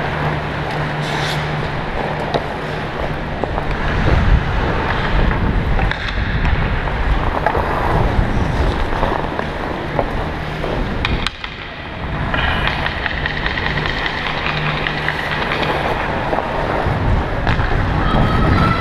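Hockey skates scraping and carving on rink ice, mixed with wind rushing over the microphone of a camera worn by a skating player, over a steady low hum.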